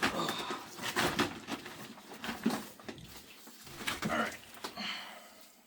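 Plastic sump-pump discharge pipe and fittings being handled: intermittent knocks and scrapes with a few short squeaks.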